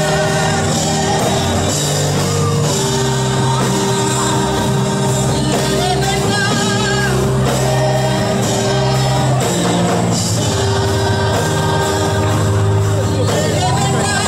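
Live gospel choir singing into microphones over instrumental accompaniment, with wavering sung lines above steady held bass notes.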